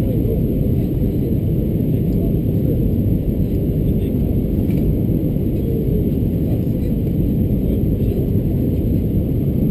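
Steady low rumble of airflow and engines heard inside the cabin of an Airbus A320-214 in flight on approach, with a faint steady hum.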